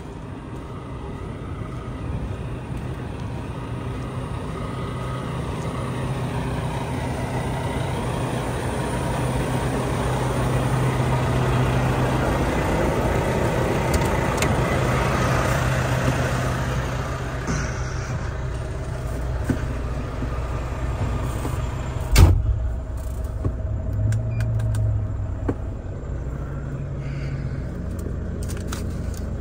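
Diesel semi-truck engines idling with a steady low hum, the background noise swelling and then easing off. About three-quarters through comes one sharp, loud thump, the truck's cab door shutting, and after it the sound is duller, as from inside the closed cab.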